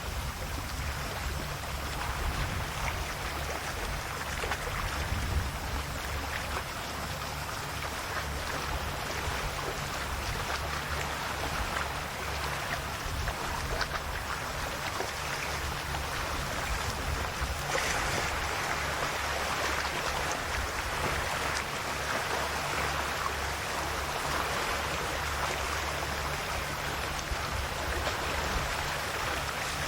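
Calm Adriatic sea waves washing and lapping on the shore in a continuous wash, with a brighter surge a little past halfway, over a low rumble.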